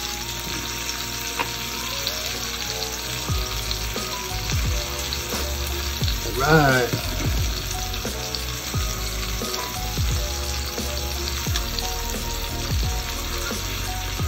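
Slices of beef and pork belly sizzling on a tabletop Korean barbecue grill plate, a steady frying hiss.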